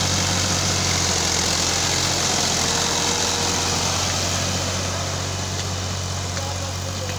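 Fiat 480 tractor's diesel engine running steadily under load while it drags a rear levelling blade through loose soil. It eases off a little near the end.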